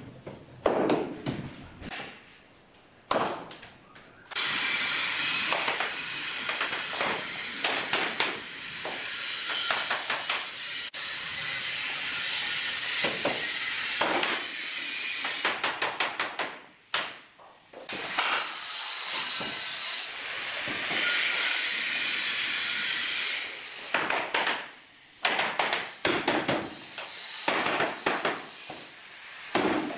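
A hammer tapping laminate flooring planks to knock their joints together, in quick runs of sharp taps, over a steady hiss that lasts for long stretches.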